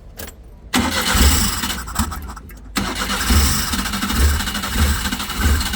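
Daewoo Labo mini truck engine cranked by the starter, then catching and running unevenly with irregular low thumps. This is an engine with a starting fault that will not keep running on its own.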